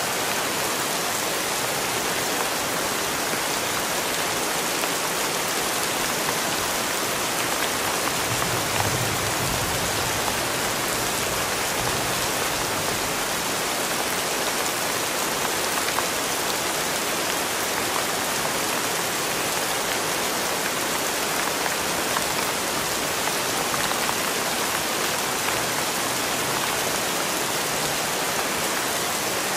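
Steady rain falling on wet concrete paving, an even hiss.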